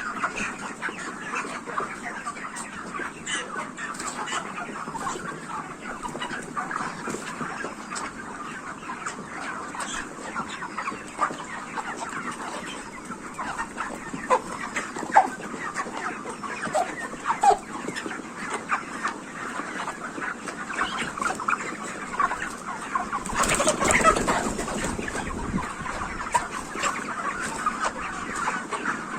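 A large flock of 44-day-old black broiler chickens in a poultry shed clucking and calling continuously, with many short calls overlapping. About three-quarters of the way through, a louder rustling burst briefly rises over the calls.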